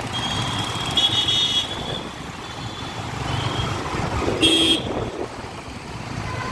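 Busy road traffic running steadily, with vehicle horns honking several times: the loudest toots about a second in and again just after four seconds.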